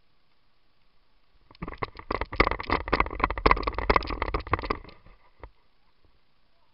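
Paintball fire: a rapid string of sharp pops, about three seconds long and starting about a second and a half in, then one more single pop.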